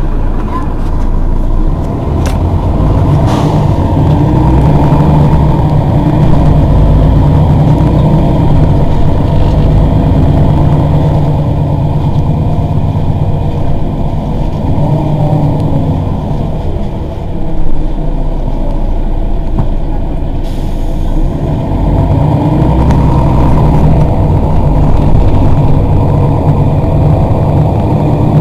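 Diesel engine of a Mercedes-Benz Citaro city bus running, a loud steady low drone that swells and eases slightly, with one brief louder knock a little past halfway.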